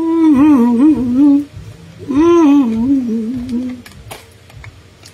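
A woman humming a short tune with closed lips, in two phrases with a wavering pitch, the second starting about two seconds in. A light click follows near the end.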